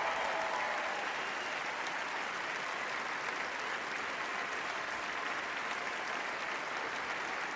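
Large audience applauding steadily during a curtain call, a dense even clapping that holds at one level throughout.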